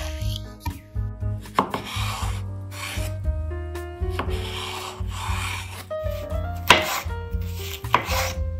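Knife chopping on a cutting board: a few sharp chops among scraping and rubbing strokes, over background music.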